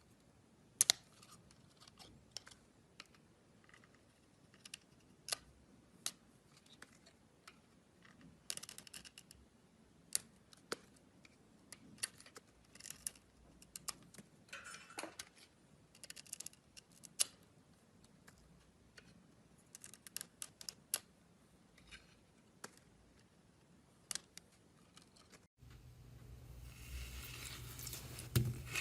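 Slime being handled, giving quiet, scattered sharp clicks and crackles, some single and some in quick clusters. About 25 seconds in, this changes to louder, denser squishing over a low hum.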